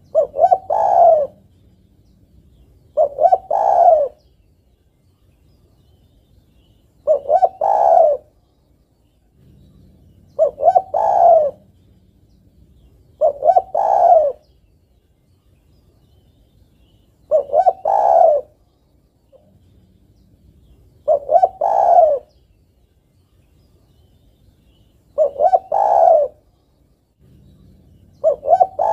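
Female spotted dove cooing to call a male. It gives about nine phrases, one every three to four seconds, each a couple of quick notes and then a longer coo.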